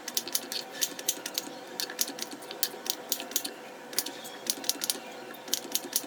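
Kitchen knife cutting pumpkin into small pieces on a cutting board: quick, irregular sharp taps, about three or four a second.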